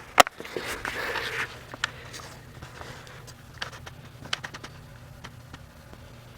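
A sharp click, then a brief rustle and a few light scattered clicks over a steady low hum.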